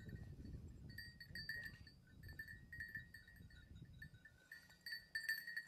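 Faint, irregular tinkling of a small bell, over a low rumble.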